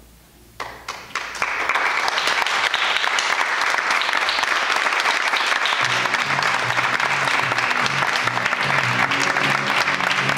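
Theatre audience applauding: a few first claps about half a second in, swelling within a second into full, steady applause. Music with low, repeating notes comes in under the applause about six seconds in.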